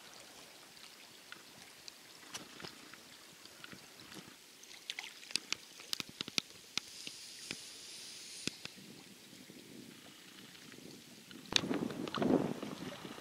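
Kayak paddling on a fast river: water dripping and trickling off the paddle blades in scattered small drips and splashes over a faint steady rush of moving water. Near the end a louder, rougher rush of splashing water and wind on the microphone comes in.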